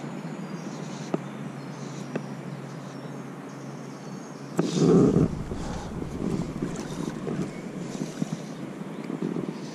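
Wind buffeting the microphone over a steady outdoor hiss, with one strong gust rumbling about five seconds in and a few faint clicks.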